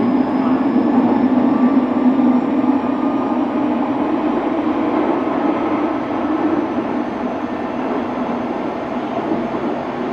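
Kobe City Subway 6000-series electric train running on the line: steady wheel-and-rail running noise with a faint high whine that slowly rises in pitch.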